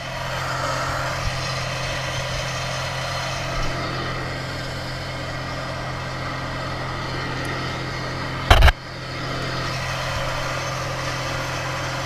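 An engine idling steadily, with one loud knock about two-thirds of the way through.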